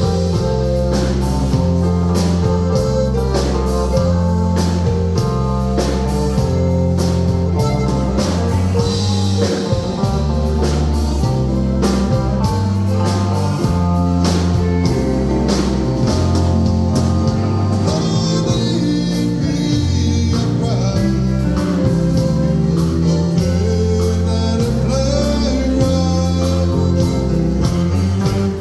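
Live band playing a song: a steady bass line under regular drum hits and guitar.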